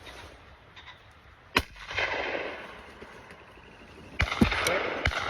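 Gunshots: one sharp shot about a second and a half in, then a quick run of three or four near the end, each trailing off in a long rolling echo.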